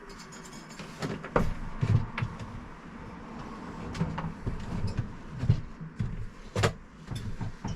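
Irregular knocks, bumps and scrapes of a motorhome's 3-way absorption fridge being pulled out of its cabinet recess, with one sharp knock about two-thirds of the way through.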